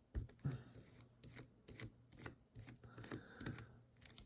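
Light, irregular clicks and taps of a precision screwdriver and tiny screws being handled while a folding knife is taken apart.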